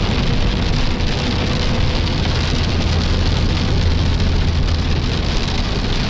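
Steady road and tyre noise with a low drone, heard from inside a car's cabin while driving on the highway.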